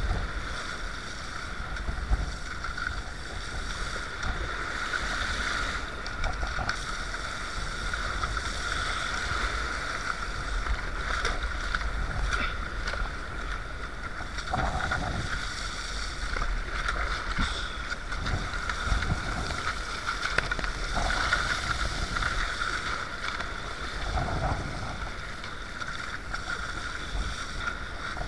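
Wind buffeting the microphone over the steady rush and slap of choppy water against a sea kayak's hull as it is paddled, with a few louder surges of water.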